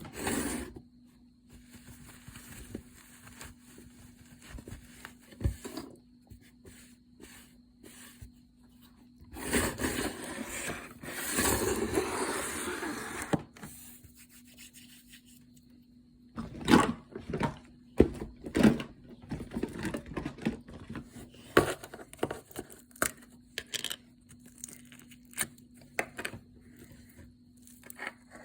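Hands playing with slime close up: scattered squishing clicks and pops, with a louder spell of continuous crackling noise about ten to thirteen seconds in, and a quicker run of pops in the second half.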